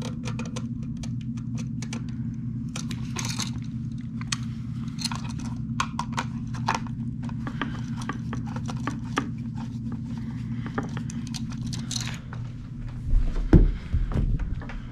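Small metallic clicks and scrapes of a screwdriver turning a receptacle's terminal screws and the copper wires being handled, over a steady low hum. A few heavier thumps come near the end.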